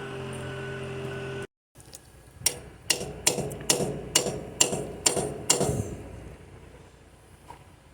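Eight sharp hammer blows, about two a second, each with a short ring. Before them a steady hum cuts off abruptly.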